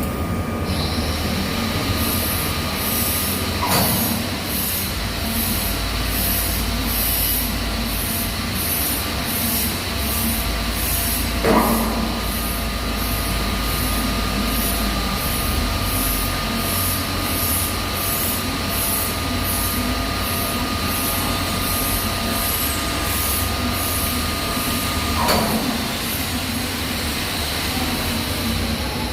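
A TIG welding arc burning on stainless steel: a steady hiss with a high whine and a rhythmic pulsing about twice a second. Three brief knocks come partway through.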